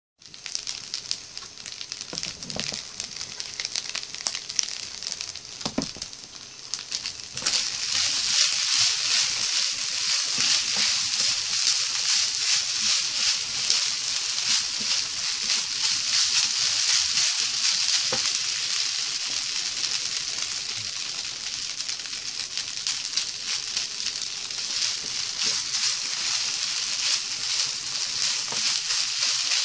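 Spicy fried rice sizzling in a nonstick frying pan on a portable gas burner as it is stirred with a spatula. The sizzle is quieter for the first seven seconds, with a few knocks, then grows much louder and stays loud and crackling.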